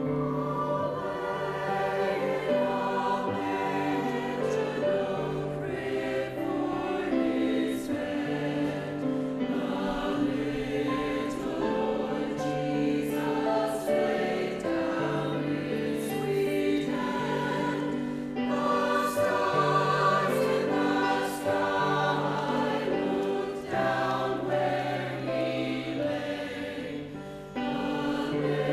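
A choir singing in harmony, holding long notes that change every second or two.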